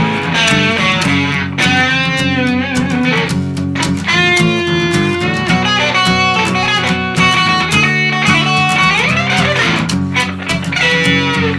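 Rock band playing an instrumental passage: an electric guitar lead with bending notes over bass guitar and drums.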